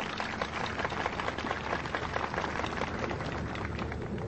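A crowd applauding, many hands clapping at once.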